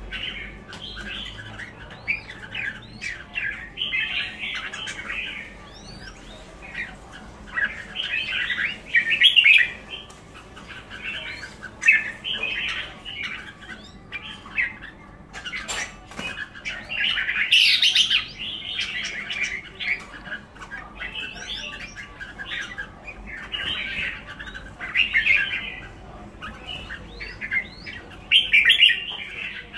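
Caged pied red-whiskered bulbuls calling and singing: short bursts of chattering, warbled notes every second or two, with one sharp click about halfway through.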